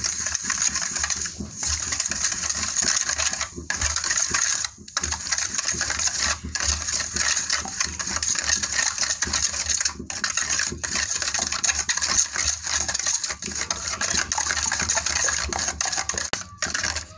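Steel spoon stirring and scraping against a stainless steel bowl as thick curd (mattha) is beaten into sugar water: a steady, rapid clinking scrape broken by a few brief pauses.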